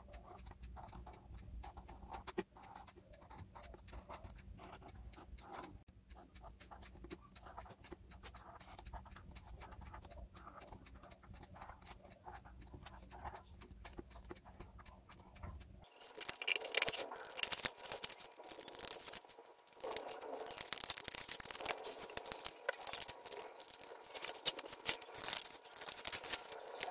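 Faint scratching of a felt-tip marker pen on paper as numbers are written. About sixteen seconds in, a louder stretch begins of scissors snipping and cutting through a sheet of paper.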